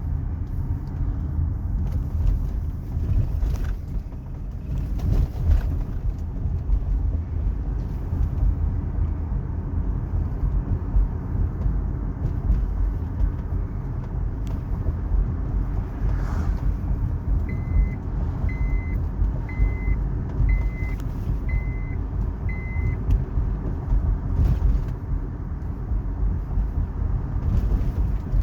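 Car cabin rumble while driving over bumps, with occasional knocks from the coilover suspension, a weird noise on bumps that sounds a little bad. A run of six short, evenly spaced beeps from a car warning chime sounds about halfway through.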